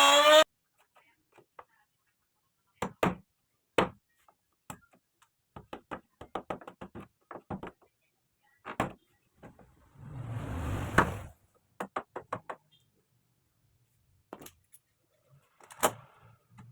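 A router motor whining as it winds down, falling in pitch and cutting off about half a second in, followed by scattered knocks, taps and clicks of the tool and workpiece being handled, with a brief scraping rustle about ten seconds in.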